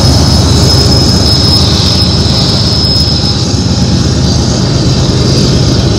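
BNSF diesel locomotives passing close by: a loud, steady engine drone over the rumble and clatter of wheels on the rails, with a high, steady wheel squeal that fades out about three seconds in.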